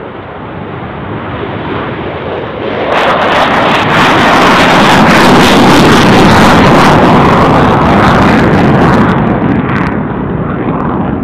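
F-35 fighter jet's engine noise during takeoff and climb-out: a loud rushing jet noise that swells about three seconds in, holds at its loudest for several seconds, then eases off near the end.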